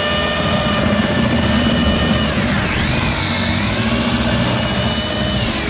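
Electric drill with a paddle mixer churning thinset mortar in a bucket. The motor's whine holds steady, dips in pitch about two and a half seconds in as it slows under load, then climbs back to speed.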